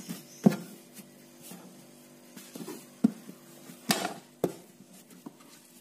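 Hand kneading soft yeasted potato dough on a floured board: scattered dull thumps and soft squishes as the dough is pressed and folded, with a sharper knock near 4 seconds.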